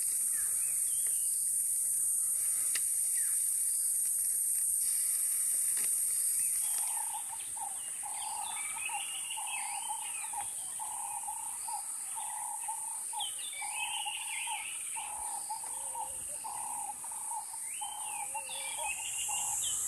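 Evening bush chorus: a steady high shrilling of insects, loudest for the first seven seconds. After that a repeated note comes in about one and a half times a second, with bird chirps scattered above it.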